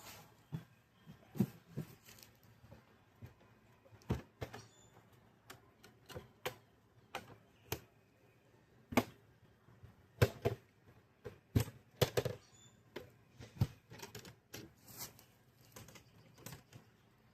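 Irregular clacks and knocks, roughly one every second, as Apimaye hive boxes and parts are handled, lifted and set down.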